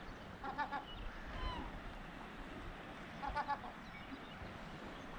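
Gulls calling: two quick runs of short, stacked notes, about half a second in and again after three seconds, with a few short falling cries between, over a steady background hiss.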